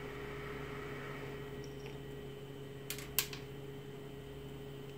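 Hot-air rework gun blowing steadily, its fan giving a low, even hum, while the shorted battery MOSFET is desoldered from the laptop board. Two short, sharp clicks about three seconds in.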